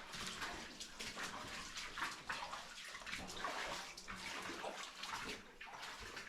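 Footsteps splashing and sloshing through shallow standing water on a flooded tunnel floor, irregular splashes about two a second.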